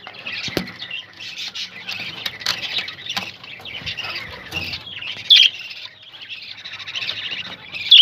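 Budgerigars chattering: a dense, continuous mix of warbles and chirps, with one louder squawk about five seconds in and a couple of sharp clicks.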